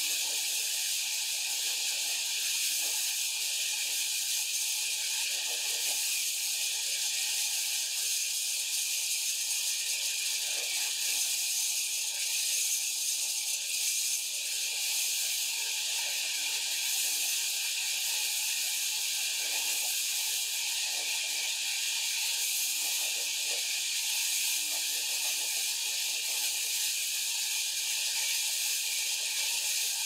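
Sawmill band saw blade cutting lengthwise through a large log: a steady hiss of the blade in the wood as it throws out sawdust, unbroken throughout.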